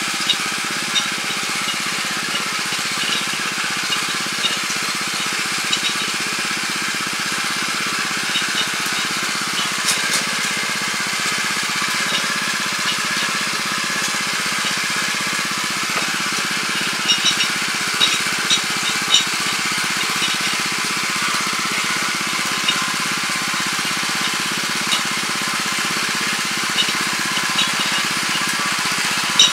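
Weima WM 900 7 hp tiller running steadily under load, its rotary tines churning hard, compacted soil, with scattered light ticks through the steady noise.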